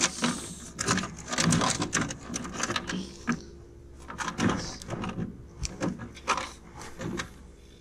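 Irregular clicks, taps and knocks of fishing gear being handled in an aluminum jon boat, as a spinning rod and reel are picked up and readied to cast.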